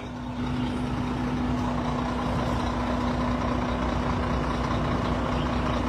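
Heavy truck engine idling steadily, a constant low rumble with a steady hum.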